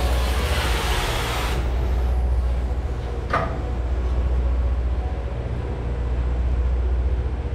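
Cutting torch hissing as it heats a rusted, seized shock absorber bolt on a semi truck's rear axle, cutting off abruptly about a second and a half in. A single sharp knock follows about two seconds later, over a steady low rumble.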